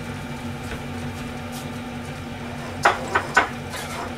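Three quick clatters of kitchenware about three seconds in, over a steady low hum.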